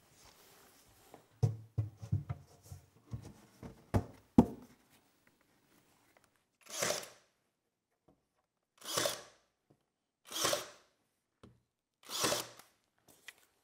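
Knocks and clatter as a plywood back panel is set onto a cabinet case, then a cordless drill driving screws into the panel in four short runs about a second and a half apart.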